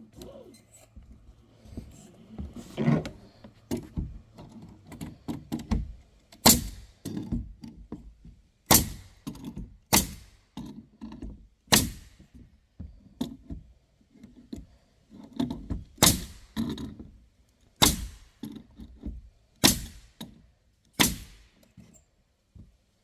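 Pneumatic air nailer driving nails into wood, powered from a charged air compressor tank: a string of sharp bangs about one to two seconds apart, with softer knocks between them.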